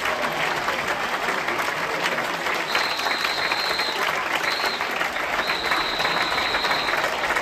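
Audience applauding, dense and steady clapping. From about three seconds in, a high steady whistle is held on and off.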